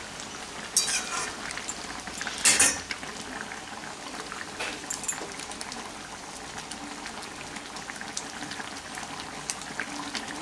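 Thick egg curry bubbling and sizzling in a steel kadai, still bubbling just after the gas is turned off. A spatula scrapes against the pan twice in the first three seconds.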